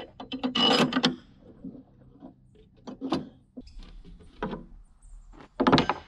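Wood and metal knocks, scrapes and rattles as a homemade spool of plywood and threaded rod is taken apart on its sawhorse stand. There is a quick cluster of clicks in the first second, a few scattered knocks after it, and the loudest knock near the end.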